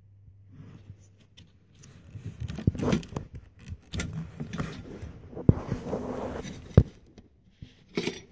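Hands working rubber hoses and plastic wiring connectors on an engine's upper intake: irregular rubbing and scraping with several sharp plastic clicks.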